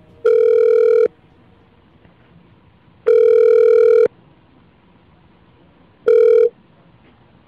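Telephone ringback tone heard down the line: two steady rings of about a second each, about two seconds apart, then a third ring cut short near the end as the call is answered. A faint line hiss runs between the rings.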